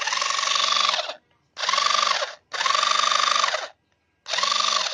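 Cordless screwdriver's motor and gearbox running in four short bursts of about a second each. Each run starts with the motor speeding up, holds a steady whine over a gritty gear noise, then winds down as it stops.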